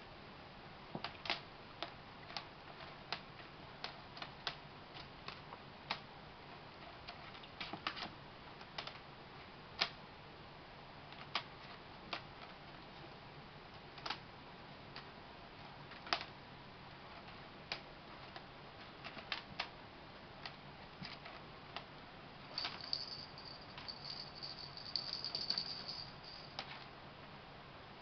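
Irregular sharp clicks and taps of kittens playing on a hardwood floor: paws, claws and toys striking the boards. Near the end a light rattling runs for several seconds.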